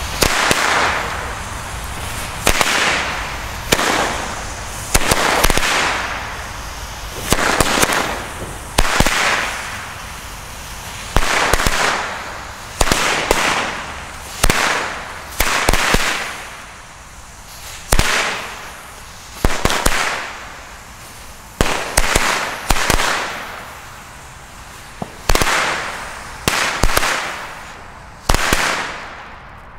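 Dragon Inferno firecracker chain (Knallkette) going off on the ground: a long run of loud bangs about every one to two seconds, some in quick clusters of two or three, each trailing off over about a second.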